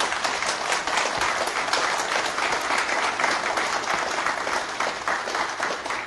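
Audience applauding: many hands clapping in a dense, steady patter that starts suddenly and eases off near the end.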